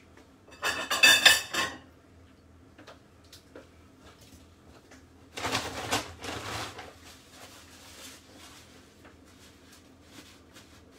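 Kitchen handling noise as rinsed, wet salmon fillets are brought from the sink and laid on a plastic chopping board: a short clattering burst about a second in, another about five and a half seconds in, and light knocks between.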